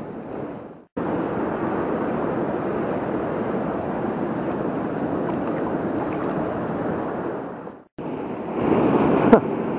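Steady rush of a flooded river's fast current, cut off twice by brief silences, about a second in and near eight seconds. A single sharp click comes near the end.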